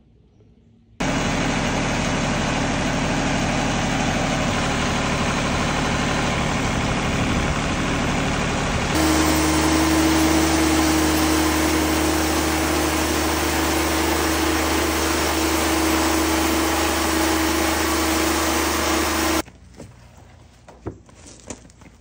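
Wood-Mizer LT50 band sawmill running, its engine and band blade sawing through a walnut log with a loud, steady noise. About nine seconds in the sound changes abruptly to a steadier hum with a strong pitched tone, and it cuts off suddenly near the end, leaving faint clicks.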